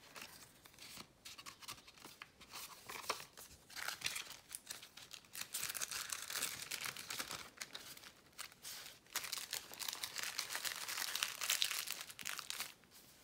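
Paper and card rustling and crinkling as junk-journal cards and paper bits are handled, slid out of an envelope and shuffled, with many small ticks and scrapes, busier in the second half.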